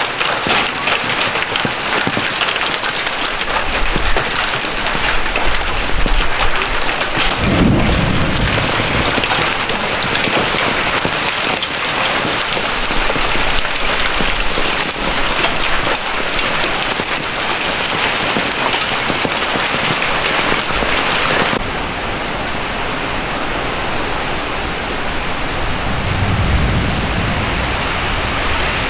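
Hail and rain pelting clay roof tiles: a dense, steady patter of countless small impacts. A low rumble swells about eight seconds in, and the patter turns duller and a little softer about two-thirds of the way through.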